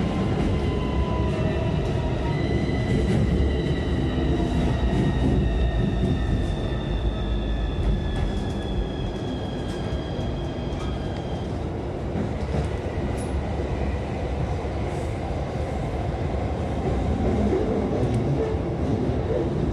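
Keikyu electric commuter train heard from inside the car while running: a steady rumble of wheels on rail and body noise. A faint high whine falls slowly in pitch over the first half.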